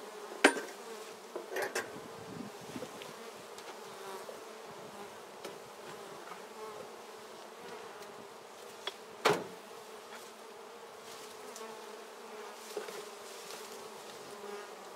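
Honeybees buzzing steadily around an opened Warré hive. Three short sharp knocks stand out, about half a second in, near two seconds in and about nine seconds in, as the wooden hive parts are worked with a hive tool.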